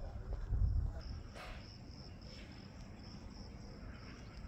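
Insects chirping: a faint, high, evenly pulsing trill, over a low rumble that fades out about a second in.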